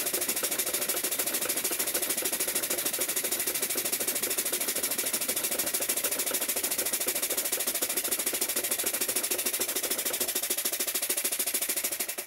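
Three small single-cylinder model steam engines running on compressed air, a rapid, steady chuffing clatter from their unpiped exhaust ports. The engines are running to test newly fitted copper steam pipes.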